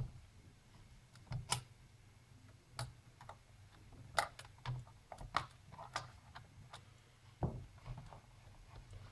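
Scattered small sharp clicks and taps, about a dozen at irregular intervals, from disconnecting a netbook's ribbon-cable connectors and handling its plastic parts.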